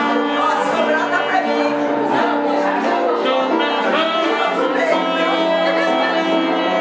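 Saxophone played live, a melody of sustained notes over a full musical backing, with people's voices mixed in.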